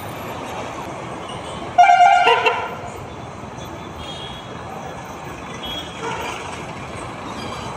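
A vehicle horn honks once, loud, for under a second about two seconds in, over a steady din of engines and traffic.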